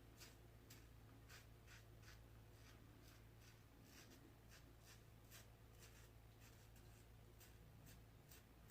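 Faint, short scrapes of a double-edge safety razor cutting lathered stubble, about two strokes a second. The blade is one the shaver finds tuggy and blames for a poor shave.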